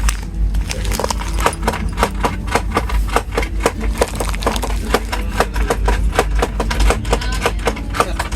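Passenger train running, with a steady low rumble and quick rhythmic clacking of the wheels on the rails, several clicks a second.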